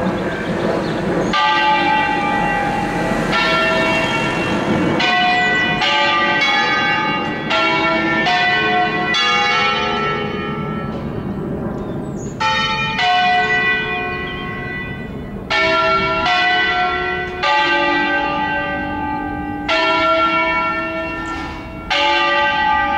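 Five bronze church bells cast by Angelo Ottolina in 1947, swung and rung in a concerto solenne: strikes follow one another in a melodic sequence, each ringing on and overlapping the next. A low rumble sits under the first few seconds.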